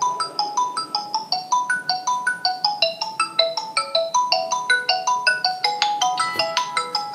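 Xiaomi Redmi Note 5 smartphone ringing with an incoming call: its ringtone plays a quick melody of short notes, several a second.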